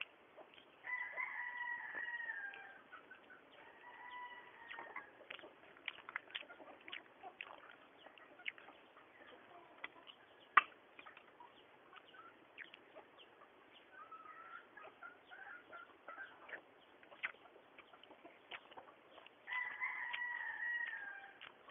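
A rooster crowing: a long call about a second in, a shorter one at about four seconds, and another long call near the end, the long calls dropping in pitch as they finish. Light clicks and taps throughout, with one sharp tap about ten seconds in.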